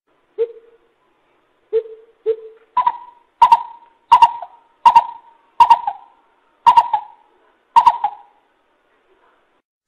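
Coucal hooting: three deep single hoots, then a run of seven higher, sharper hoots about two-thirds of a second apart that slows slightly toward the end.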